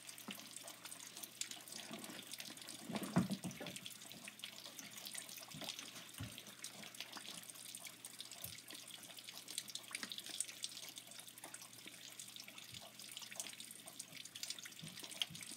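Rain falling outside, a faint steady patter with many small drips. A brief low sound stands out about three seconds in.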